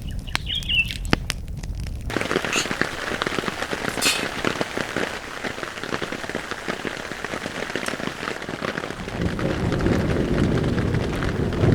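Rain: scattered drips with a short bird chirp at first, then about two seconds in a sudden switch to steady heavy rain pattering on a surface. Near the end a low rumble builds under the rain.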